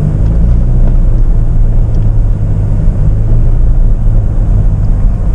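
Jeep Meridian's 2.0-litre turbo-diesel engine pulling steadily at low revs, held under load as the SUV climbs a steep slope at constant throttle.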